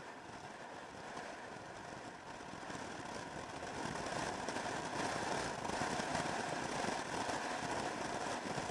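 Motor scooter running at road speed, with wind rushing over a camera at the rider's head. The rush grows louder about four seconds in.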